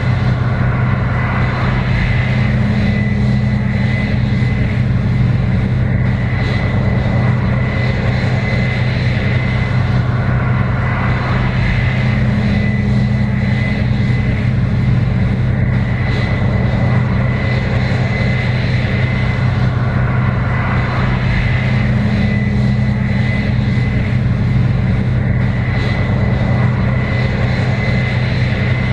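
Case IH 7120 Axial-Flow combine running steadily while harvesting corn: a constant diesel engine drone with a thin, steady high whine over it, swelling slightly now and then.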